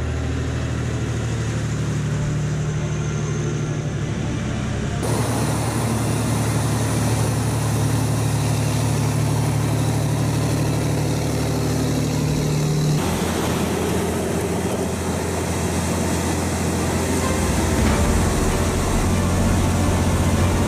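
Heavy MZKT-79221 missile launcher truck's diesel engine running with a steady deep hum. The sound changes abruptly about five seconds in and again about thirteen seconds in.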